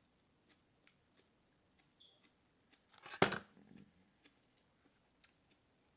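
Close-up eating sounds: faint lip smacks and mouth clicks, with one loud, short bite noise about three seconds in.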